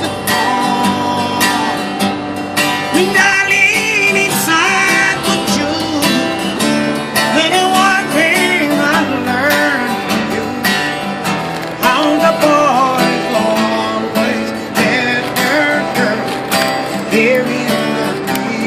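Acoustic guitar played live, strummed chords with a wavering melody line above them.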